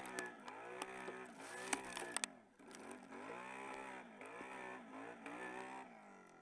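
Can-Am Renegade ATV's V-twin engine revving up and down over and over, its pitch dipping and climbing about every half second as the throttle is worked with the wheels spinning in crusty snow in two-wheel drive. A few sharp knocks come about two seconds in.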